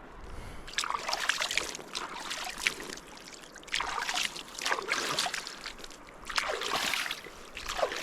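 Water splashing and sloshing in repeated bursts about every second and a half, each starting sharply and dying away, over a faint steady wash of the river.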